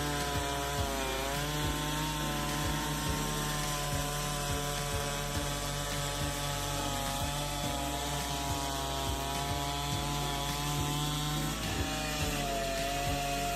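Chainsaw engine running at high revs while cutting through a large log, its pitch dipping as the chain bites into the wood about a second in and again near the end.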